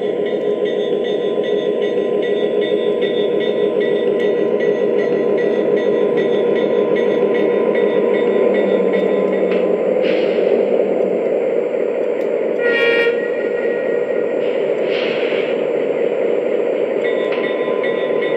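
Sound system of a Lionel Legacy NW2 diesel switcher model playing a steady diesel engine sound as the locomotive rolls on the track, with short bursts of air hiss at about 10 and 15 s and near the end. A brief horn note sounds about 13 s in.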